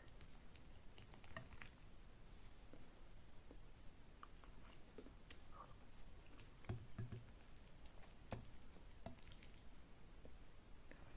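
Close-miked, quiet wet chewing of Korean noodles: soft squishy mouth sounds with small scattered clicks and smacks. A few louder smacks come about two-thirds of the way through.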